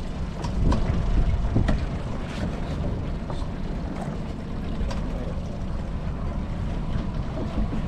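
Wind rumbling on the microphone aboard a small boat at sea, over the wash of water, with scattered light clicks and knocks.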